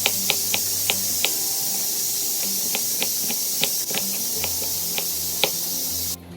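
Steady loud hiss of food cooking in a hot pan on the stove, cutting off abruptly near the end.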